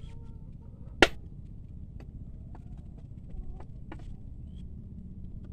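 A bolo knife striking a husked coconut to crack its shell: one sharp crack about a second in, then a few lighter taps.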